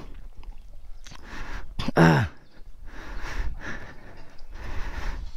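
A person sighing and breathing close to the microphone, with one short voiced sigh falling in pitch about two seconds in, over a steady low rumble.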